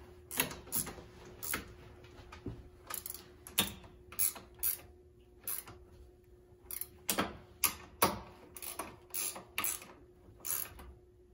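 Ratchet with a 13 mm socket clicking in short, irregular strokes, singly and in quick pairs, as the ramp's loose mounting bolts are tightened down.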